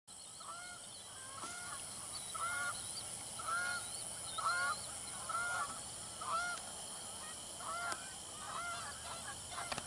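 Geese honking, a series of calls roughly one a second.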